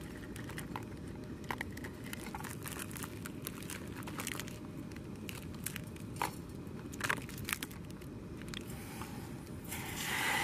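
Dry instant ramen noodles being crushed and crumbled by hand into a stainless steel camping pot, a run of sharp crackles and crunches. Right at the end, water starts pouring into the pot from a plastic bottle.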